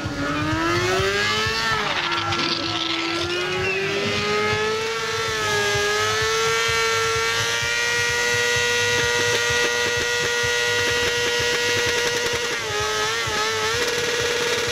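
Sport motorcycle engine revving up over several seconds and then held at high revs during a burnout, the rear tyre spinning on wet pavement. The revs dip briefly near the end, then pick up again.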